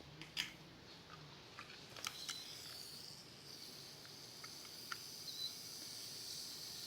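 Faint, steady fizzing hiss from a freshly uncapped bottle of cola, starting about two and a half seconds in. A few light clicks come before it, from the bottle being handled.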